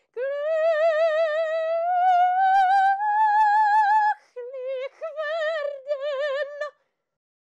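A woman singing opera unaccompanied, with a wide vibrato. She holds one long note that slowly climbs in pitch for about four seconds, then sings a run of shorter, lower notes that stop a little before the end.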